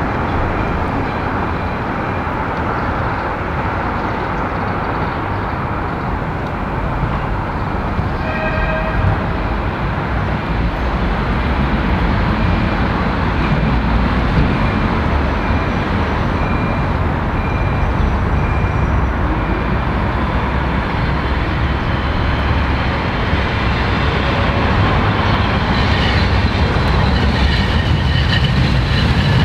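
Steady street traffic noise as an articulated electric tram approaches along the tracks. The sound grows louder from about halfway, with a high whine from the tram coming in near the end. A brief higher tone sounds about eight seconds in.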